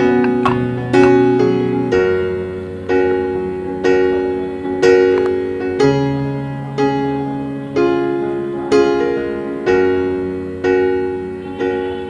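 Background piano music: soft chords struck about once a second, each fading away, over held bass notes.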